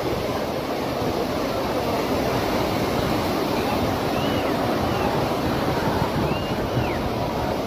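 River in flood: fast, muddy floodwater rushing in a steady, unbroken roar.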